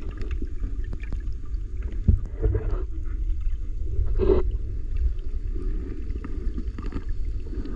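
Muffled underwater water noise picked up by the GoPro Hero 9's microphone as the swimmer moves the camera through the water: a steady low rumble, a sharp knock about two seconds in and a louder brief gurgling swish around four seconds.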